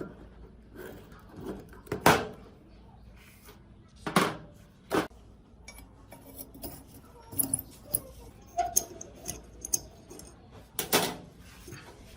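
Metal parts and hand tools clinking and knocking against a hard surface while being handled, with four sharper knocks among lighter clicks.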